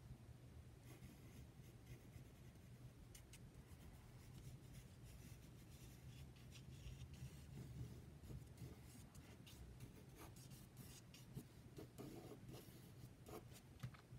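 Faint scratching of a yellow wooden graphite pencil on paper: short, light sketching strokes at irregular intervals.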